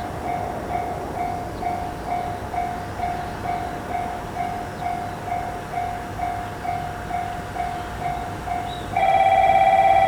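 Japanese railroad crossing warning bell ringing its repeated 'kan-kan' strikes, about two and a half a second. Near the end a louder steady tone comes in over it.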